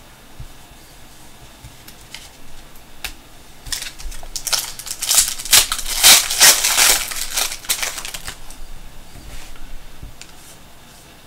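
Foil wrapper of a trading card pack crinkling and tearing as the pack is opened. Light rustling builds into a burst of dense crackling about four seconds in, which fades away about eight seconds in.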